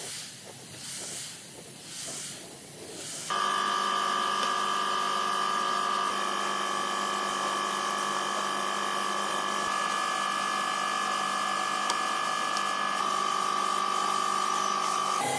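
Rhythmic rasping strokes for the first few seconds. Then an electric power tool starts suddenly and runs steadily at one constant high pitch.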